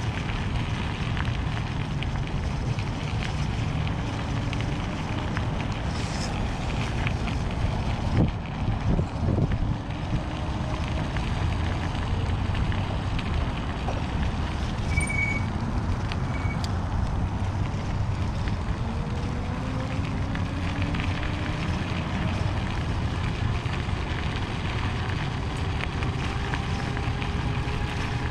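Electric bike being ridden over a gravel road: a steady rumble of wind on the microphone and tyres rolling on gravel. A louder stretch of crunching and rattling comes about eight to ten seconds in, and faint whines slowly rise in pitch a few times.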